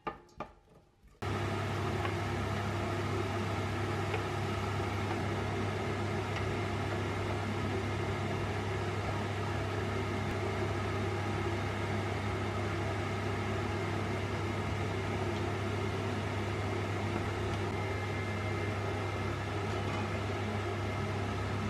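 Induction hob running under a pot: a steady electrical hum with a fan's whir, starting abruptly about a second in.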